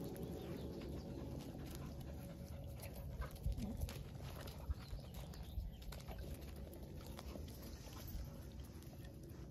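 A corgi and a Labrador moving and sniffing close to the phone, with a few short sharp sounds about three and a half and nearly five seconds in, over a low steady rumble.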